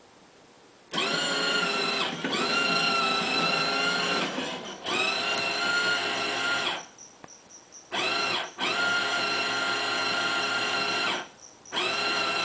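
Electric drive motor and gearing of a battery-powered ride-on toy train whining as it runs along its track. It runs in three spells, each spinning up with a short rise in pitch and winding down with a fall as it stops.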